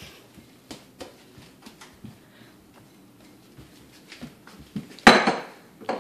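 A small metal pot knocking and clattering as a toddler handles it, with light taps throughout and one loud ringing clang about five seconds in as it meets the wooden floor.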